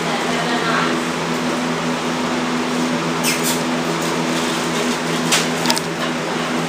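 Steady machine hum with an even hiss, like an air conditioner or fan running in a small room, with a few brief clicks in the second half.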